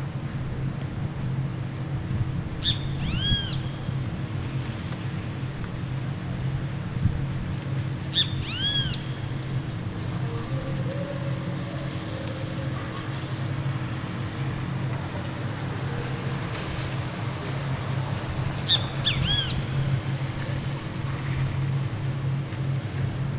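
Great kiskadee calling three times, each call a quick cluster of arching notes, over a steady low city hum.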